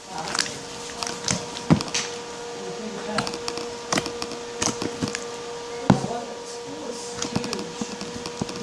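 Slime being squeezed and stretched in the hands, giving irregular sharp clicks and pops, the loudest about two seconds in and near six seconds in. A faint steady hum runs underneath.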